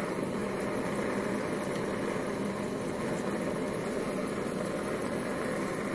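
Modified Warpfive Stirling engine generator running steadily on a propane burner, its shaft-driven radiator fan and water pump turning with it: an even, unbroken running noise with no distinct beat.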